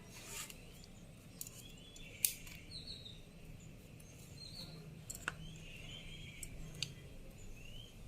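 Small birds chirping repeatedly in short calls, with a few sharp clicks scattered through, the loudest about two seconds in, over a low steady hum.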